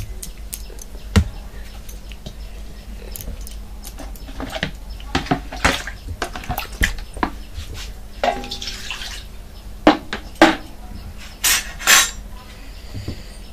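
Metal cooking pots and aluminium bowls clinking and knocking against each other, with some hot liquid being poured. Scattered clinks throughout, with a few louder knocks near the end.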